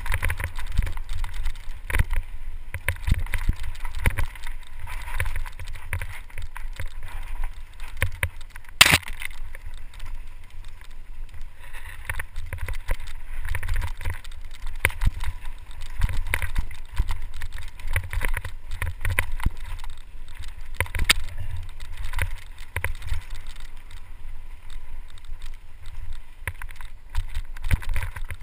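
Mountain bike riding fast down a rough dirt singletrack: steady rattling and knocking from the bike over rocks and roots, with a low wind rumble on the microphone, and one sharp loud knock about nine seconds in.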